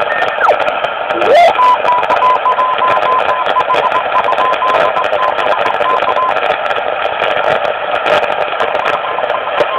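RCA CR-91 tube communications receiver tuned around 14 MHz, giving shortwave band hiss with crackles of static. About a second in, a heterodyne whistle rises in pitch as the dial moves onto a signal. It settles into a steady whistle that breaks on and off for about five seconds, then fades back into the hiss.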